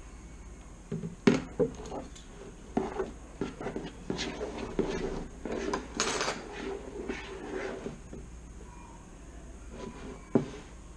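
Metal teaspoon clinking and a plastic jug knocking on a wooden table while liquid starch is measured out, with scattered clatters and a few sharper knocks, the loudest about a second in and just before the end.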